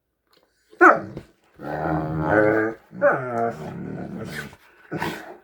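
Great Danes making deep, drawn-out groaning growls, the 'hippo noise'. After a sharp, loud start about a second in come two long calls and a shorter one near the end.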